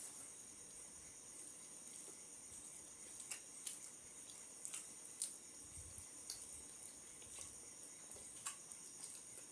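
Eating sounds of two people eating by hand: scattered wet clicks of chewing and lip-smacking over a steady high-pitched whine.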